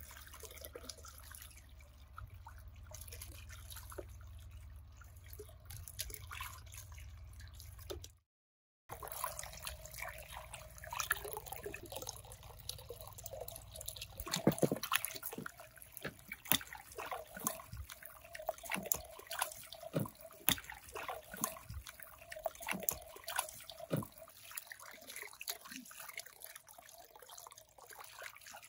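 Water trickling and dripping, with many small clicks and knocks.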